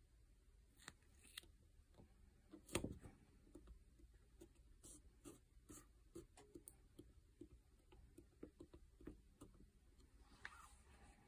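Faint handling noise as a cork tape pad is stuck onto a wood-grain panel: a soft knock about three seconds in, then a run of light taps and rubs as a thumb presses it down, and a short scratch near the end.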